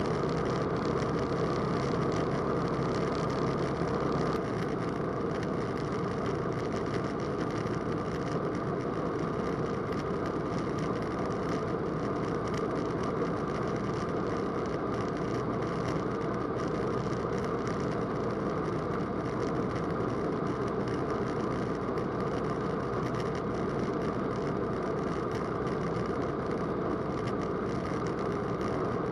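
Roland Aircraft Z602 ultralight's piston engine and propeller running steadily in cruise flight, heard as a continuous drone inside the cockpit. The low part of the drone shifts slightly about four seconds in.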